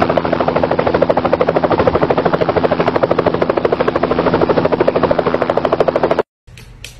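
Helicopter rotor sound, a loud rapid even chopping of the blades, cutting off abruptly about six seconds in.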